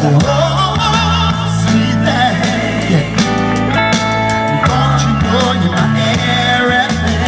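Loud live music through a PA system: a steady, heavy bass line with a man singing over it, and a chord held for about a second and a half a little past the middle.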